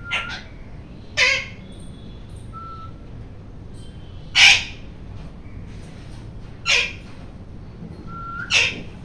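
Ring-necked parakeet screeching: five short, loud, harsh squawks at irregular gaps of one to three seconds, with a few faint short whistle notes between them.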